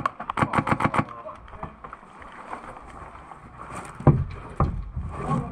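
Airsoft gun firing a quick string of shots, about seven a second, that stops about a second in. Near the end come two loud thuds about half a second apart.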